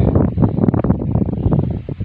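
Wind buffeting the microphone, a loud uneven rumble with crackling gusts.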